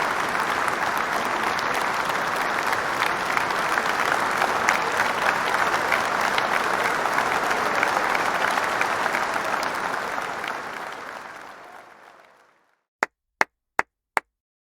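Large audience applauding steadily, fading away over a couple of seconds, then four single sharp claps about half a second apart near the end.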